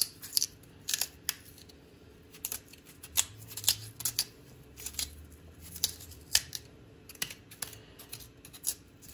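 Small fruit knife cutting and scraping into the flesh of a black radish as it is hollowed out: a run of short crisp clicks and scrapes at an uneven pace.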